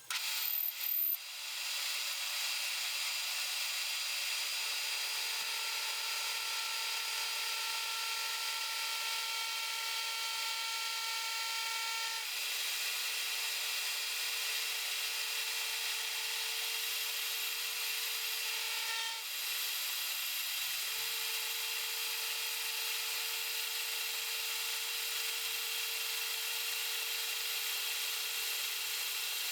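Metal lathe running and cutting steadily: a continuous high-pitched whine over a hiss, briefly dipping about two-thirds of the way through.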